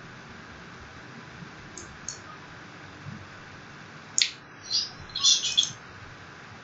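Computer mouse clicks and scroll-wheel ticks over faint hiss. Two light clicks come about two seconds in, a sharper click just past four seconds, then quick runs of ticks for about a second and a half as the page is scrolled.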